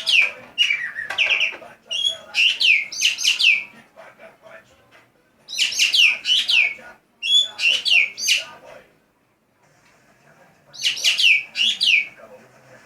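Green magpie (ekek geling) calling in loud bouts of quick, sharply falling high notes, each bout lasting about a second and a half. There are five bouts, with a pause of about two seconds before the last one.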